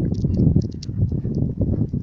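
Crackling rustle of soil being scraped away by hand around a buried pot, with a low rumble underneath and scattered small clicks.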